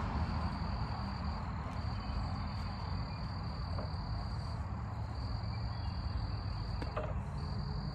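An insect trilling steadily at a high pitch, breaking off briefly a few times, over a low background rumble.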